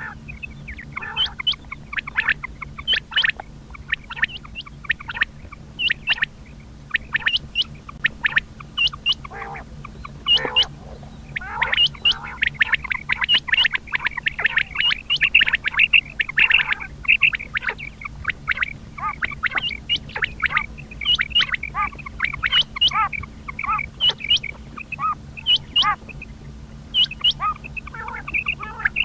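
Common quail calling over and over in short, sharp notes, with a denser stretch of overlapping calls about a third of the way in, over a steady low hum.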